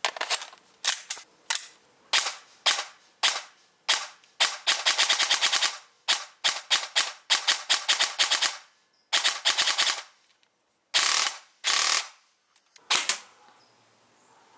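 Electric airsoft rifle, an MCX Virtus-style AEG, firing. A string of single semi-automatic shots gives way to rapid full-auto bursts; the longest burst, near the middle, lasts about a second and a half, and a few shorter bursts follow.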